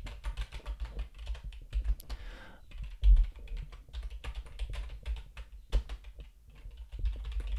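Typing on a computer keyboard: a fast, irregular run of keystroke clicks with brief pauses.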